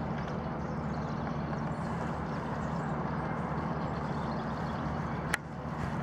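Steady background rumble with a low hum, with one sharp click a little before the end, after which the noise briefly drops and then returns.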